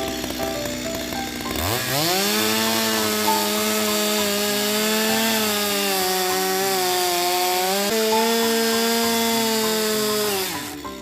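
Two-stroke chainsaw revved up to full throttle about two seconds in, held at a steady high pitch with small wobbles, then let back down near the end. Background music runs faintly underneath.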